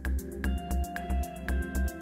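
Background electronic music with a steady beat, about four beats a second, over sustained synth notes.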